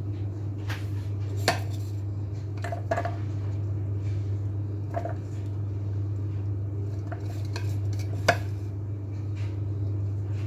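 Light clicks and knocks of handling in a kitchen: tomato peels being dropped by hand into a plastic food-processor bowl, with the bowls knocking now and then, the sharpest knocks about a second and a half in and about eight seconds in. A steady low hum runs underneath.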